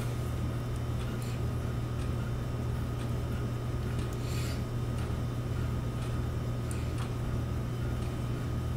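A steady low hum with a faint hiss and a few faint ticks, and no other sound.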